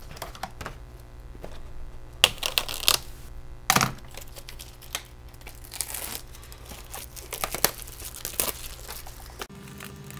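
Plastic wrapping being torn and crinkled in irregular bursts of crackling, cutting off abruptly near the end.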